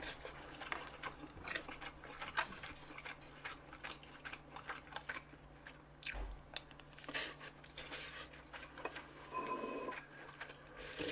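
Close-up chewing of beef intestine (gopchang) hotpot, a steady run of soft wet clicks and smacks, a little louder about seven seconds in.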